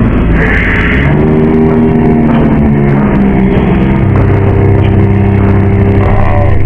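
Loud, distorted droning tones from a mock emergency-alert soundtrack: a stack of held low notes that shift in pitch a few times.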